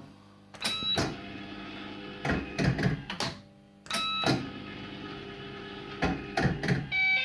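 Firecracker fruit machine in play: several clusters of mechanical clicks and clunks, a few with short electronic beeps. Near the end the machine starts a repeating electronic bleeping tune, its 'old police siren' sound.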